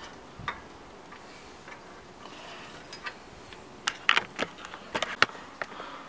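A brake caliper's steel spring clip clicking and ticking against the caliper as it is pushed and levered into place by hand. Scattered light clicks give way to a quick run of sharp metallic clicks in the second half.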